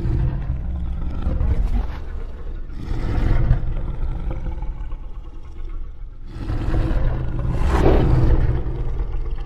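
A deep, low rumbling sound effect that starts abruptly and swells louder twice, about three seconds in and again about eight seconds in.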